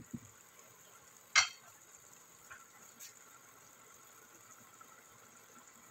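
A wooden spoon knocking against a pot of fettuccine in cream sauce as the stirring stops, then one sharp clack about a second and a half in. After that, only a faint steady hiss.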